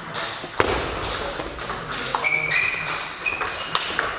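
Table tennis rally: the plastic ball clicks sharply off the rubber bats and the table, a few hits a second.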